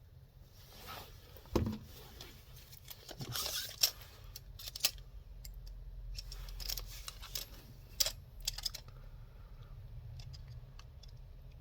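Liong Mah Design Tempest folding knife being handled and worked open and shut: a few sharp clicks, the loudest about one and a half, four and eight seconds in, among lighter ticks and rustles of handling.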